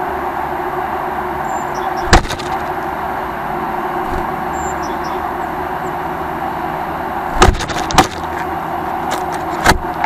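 Steady urban outdoor background noise, broken by sharp knocks close to the microphone on the bird feeder: one about two seconds in, a quick cluster around seven and a half to eight seconds in, and one more near the end.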